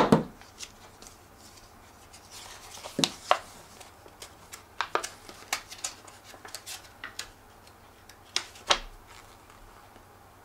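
Plastic wrap being pulled off a small product box and the packaging being handled: scattered crinkling rustles and sharp clicks, the sharpest right at the start.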